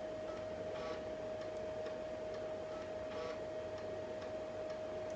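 3.5-inch floppy drive of a 386 laptop ticking irregularly as its head steps while DOS setup reads files from the disk. A steady high-pitched whine runs underneath.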